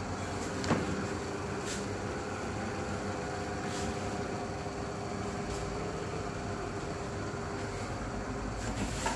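Steady mechanical background hum, with one sharp click just under a second in and a smaller one near the end.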